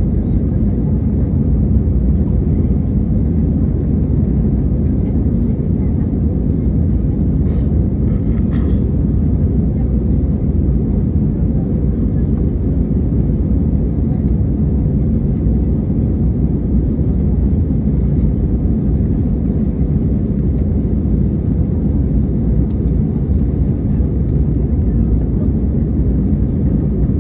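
Steady low rumble of a commercial airliner's engines and airflow, heard from inside the passenger cabin in flight.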